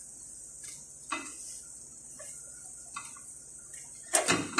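Twisted dough sticks deep-frying in hot oil: a steady high sizzle with a few scattered pops. About four seconds in, a short, loud clatter of kitchenware.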